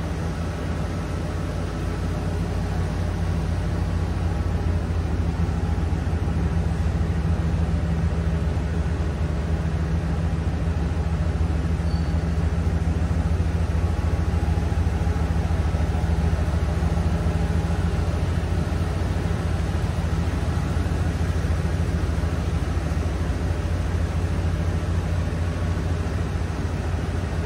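1994 Ford F-250 pickup's engine idling steadily, a low even rumble that grows a little louder through the middle stretch.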